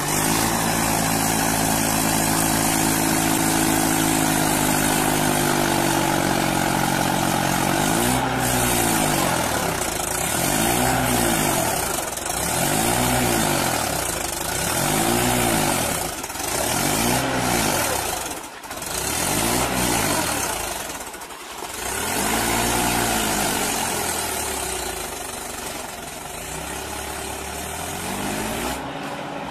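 Small farm tractor's engine running under load while the tractor is stuck in deep paddy mud: steady at first, then from about eight seconds in its pitch rises and falls roughly once a second as it strains to pull free.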